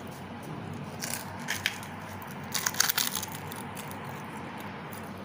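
Crisp, hollow pani puri shells crunching as they are bitten and chewed, in two short crackly bursts about a second and two and a half seconds in, over a steady background hiss.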